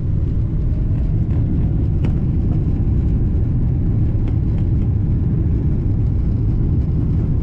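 Boeing 777-300 airliner taking off, heard from inside the economy cabin: the engines at takeoff power give a loud, steady low rumble, with a few faint clicks from the cabin.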